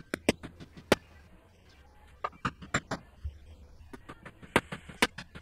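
Rubber mallet striking the setting tool on top of a mountain bike fork's steerer tube, driving a star nut down inside: about ten sharp knocks in uneven clusters.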